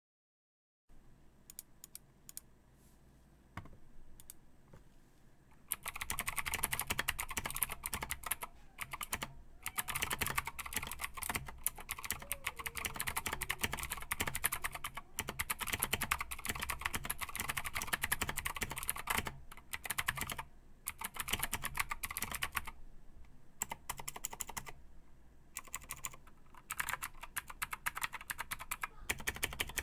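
Typing on a KP Republic XD84 Pro mechanical keyboard with clicky Gateron Green switches and PBT keycaps: a few single keystrokes, then fast continuous typing from about six seconds in, broken by short pauses.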